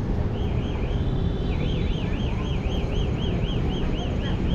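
An electronic warbling tone, like a siren or alarm on its yelp setting, sweeping rapidly up and down about four times a second over a steady rumble of city traffic. It starts about a third of a second in, breaks off briefly, then keeps going.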